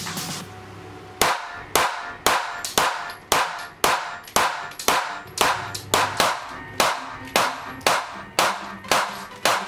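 Rapid pistol fire from a SIG Sauer P365: sharp shots at an even pace of about two a second, starting about a second in, with music playing underneath.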